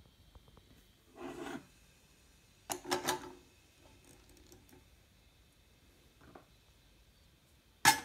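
Porcelain espresso cup and metal portafilter handled on a brass lever espresso machine's perforated drip tray: a soft scrape about a second in, a short clatter of clinks around three seconds, and one sharp clink near the end, the loudest, as the cup is set down under the portafilter.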